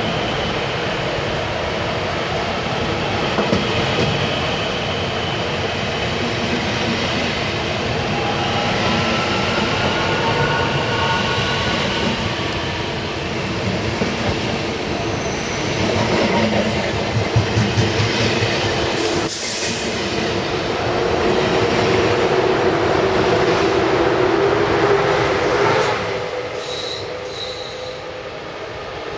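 ICE high-speed train running past close by: steady rolling noise over the rails with high, slowly gliding wheel squeal. About 26 s in, the sound drops abruptly to the quieter run of an approaching ICE 1 train.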